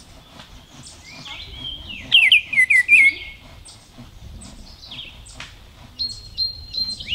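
Male Baltimore oriole singing: a short, loud phrase of rich whistled notes about two seconds in, with thinner high chirps scattered before and after.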